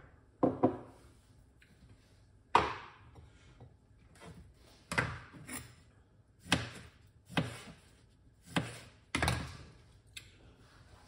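Knife chopping on a wooden cutting board: about nine separate thuds at uneven gaps of around a second.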